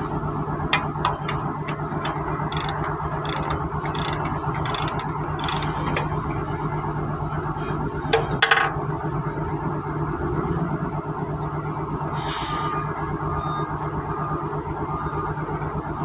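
Metal tool clicks and knocks during removal of a crane's boom base pin lock cylinder: a run of short clicks in the first six seconds and a louder metal knock about eight seconds in. A steady engine drone runs underneath.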